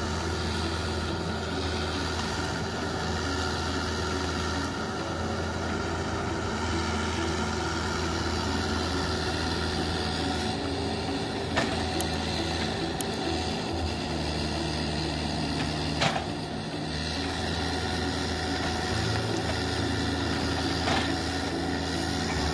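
Cat 305.5E mini excavator's diesel engine running steadily as it works, its pitch shifting a few times, with two sharp knocks partway through.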